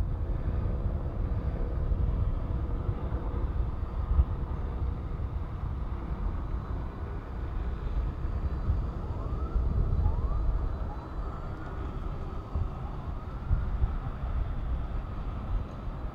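Low steady rumble of vehicle engines and traffic. From about halfway through, a faint distant siren sounds in short repeated rising sweeps.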